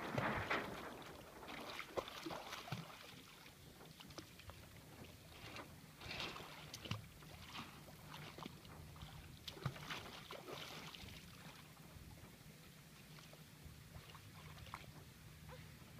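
Water splashing and sloshing against a small sailboat's hull, with scattered knocks from the boat. A faint steady low hum runs under it from about five seconds in.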